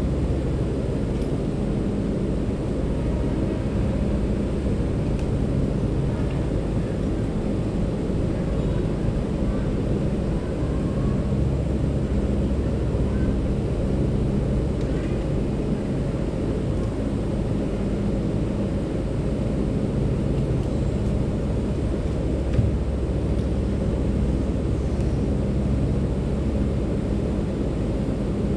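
A steady low rumble with a low mechanical hum that fades in and out, and a single knock late on.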